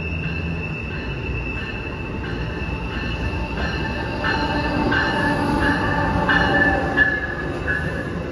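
Amtrak ACS-64 electric locomotive and Amfleet coaches passing at speed: wheel-on-rail rumble that builds from about four seconds in, with a high ringing tone and repeated sharp clacks as the trucks go by.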